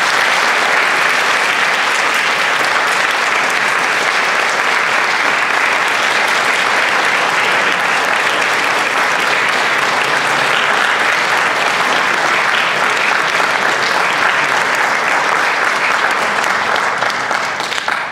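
Large audience clapping steadily, dying away near the end.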